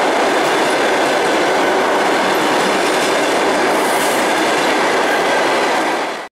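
Passenger coaches of a long-distance train rolling past close by: steady running noise of steel wheels on the rails. The sound fades out sharply just before the end.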